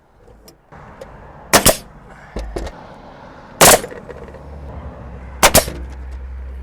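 Pneumatic nail gun firing into wooden soffit boards: three sharp shots about two seconds apart, the last a quick double, over a low steady hum.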